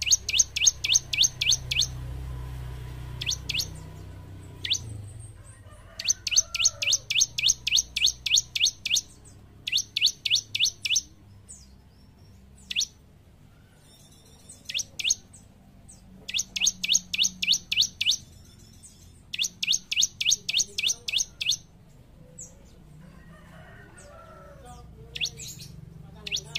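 Bar-winged prinia (ciblek) singing: fast runs of high, sharp, evenly repeated notes, about five a second, in bouts of two to three seconds, with single clipped notes in the pauses between.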